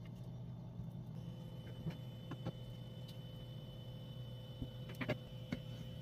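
A metal spoon scrapes and taps against a cooked kabocha squash as its seeds are scooped out, making a few soft clicks. The loudest click comes about five seconds in, over a steady low hum.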